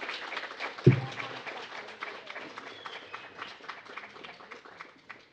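Audience applauding, a dense patter of claps that thins out and fades toward the end. About a second in, a single loud, deep thump stands out above the clapping.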